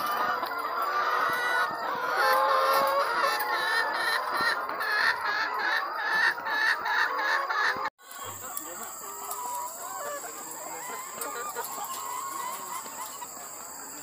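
Many caged laying hens clucking and calling at once, overlapping short calls. About halfway through the sound cuts off for an instant and the clucking carries on quieter.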